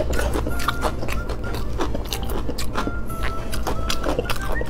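Close-miked eating of braised pork: biting and chewing with many wet smacking and clicking mouth sounds, over background music.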